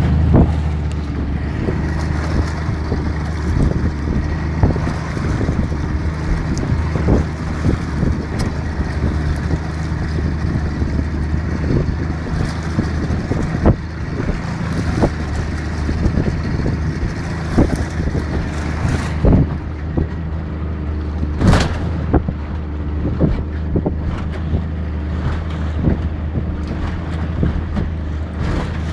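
Yamaha outboard motor running steadily under way, its hum mixed with wind buffeting the microphone and water rushing past the hull. Scattered sharp knocks of the hull slapping the waves.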